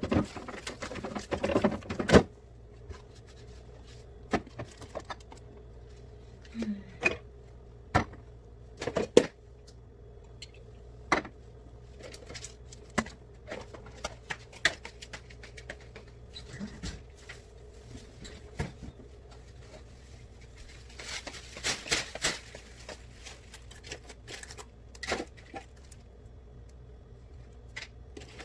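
Scattered clicks, taps and light clatters of bottles, jars and containers being handled and set down during fridge cleaning, over a steady faint hum. A denser cluster of clicks comes about two-thirds of the way through.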